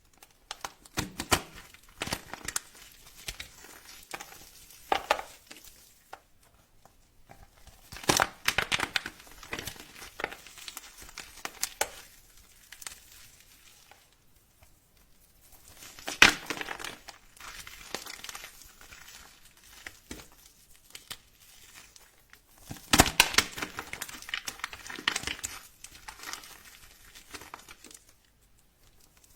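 Dry soap crackling and crumbling as it is cut and crushed, in spells of crisp crunching a few seconds long with short quiet pauses between them.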